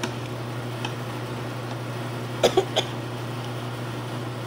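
A man coughing in three quick, short bursts about halfway through, set off by very spicy food, over a steady low hum.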